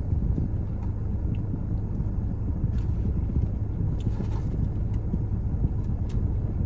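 Steady low rumble of a car idling, heard from inside the cabin, with a few faint clicks from eating.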